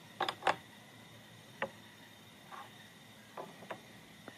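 A few light, irregular knocks and clicks: two close together at the start, one in the middle and two more near the end, over a faint steady high hum.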